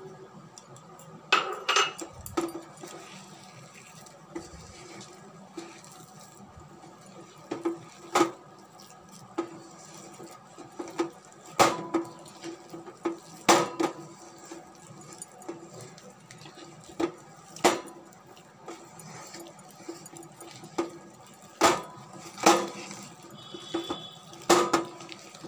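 A hand kneading a crumbly palm-pulp and flour dough in a stainless steel bowl, the bowl giving irregular sharp clinks and knocks every second or two, some with a short metallic ring.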